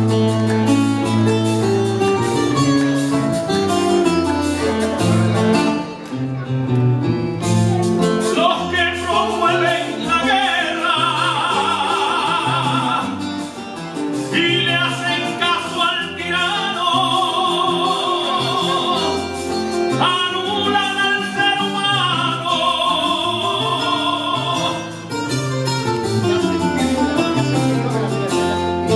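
A laúd plays a plucked, strummed accompaniment alone, then about eight seconds in a man starts singing a décima over it. He sings in four long, held phrases with a strong vibrato, with short gaps between them.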